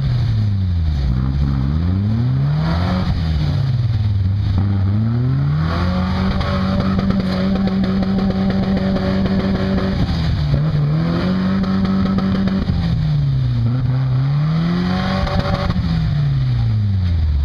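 Lifted pickup truck's engine revving up and down repeatedly as it claws up a steep muddy hill climb. The revs are held high for several seconds in the middle, dip briefly twice, then fall away near the end.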